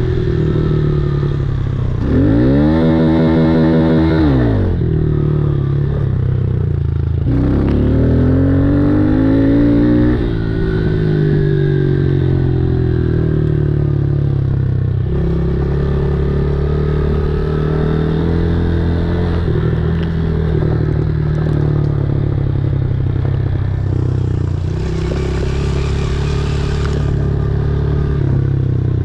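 Dirt bike engine running while riding, its pitch climbing and dropping several times as the throttle is rolled on and off through the gears. A rush of hiss comes for a few seconds near the end.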